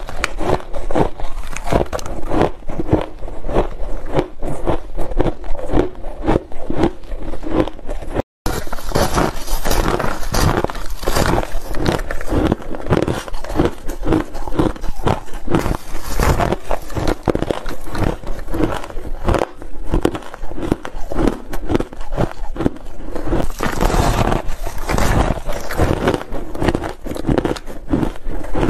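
Close-miked biting and crunching of purple shaved ice in the mouth: dense, rapid crunches without pause, broken by a brief silent gap about eight seconds in.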